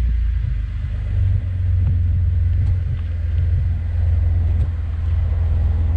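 Side-by-side UTV engine idling while parked: a steady low rumble.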